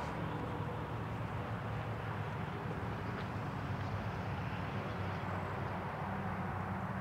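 Steady outdoor background noise with a low hum underneath and no single event standing out.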